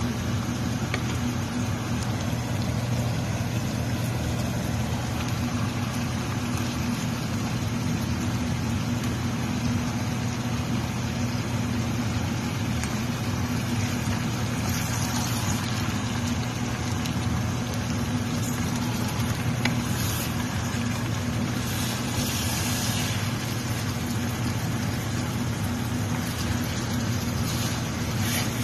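Steady low motor hum with a constant hiss over it, and a few brief louder scraping rustles around the middle and near the end as a wooden spoon turns chicken pieces in an enamel pot.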